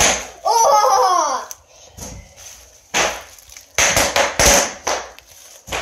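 Bubble wrap popping as it is stepped on with a bare foot: a series of sharp pops in small clusters. A short falling voice, like a squeal or laugh, comes about half a second in.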